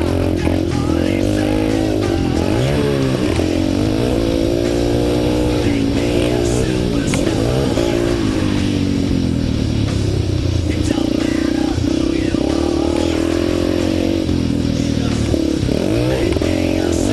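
Yamaha TTR 230's single-cylinder four-stroke engine being ridden hard, its pitch repeatedly climbing under throttle and dropping sharply as the throttle is rolled off or a gear is changed.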